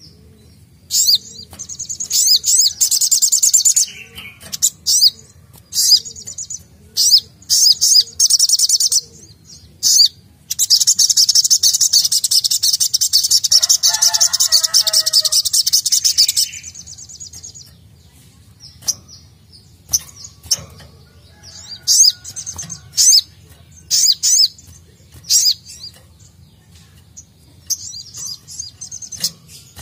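Brown-throated sunbird (sogok ontong) singing in a cage: high, sharp chirps in short bursts, with one long unbroken rapid trill of about six seconds near the middle.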